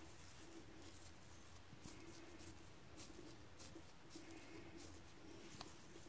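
Near silence: faint, soft rustling and scraping of hands pressing and rolling crumbly besan ladoo mixture into balls and scooping it from a glass bowl, over a low faint hum.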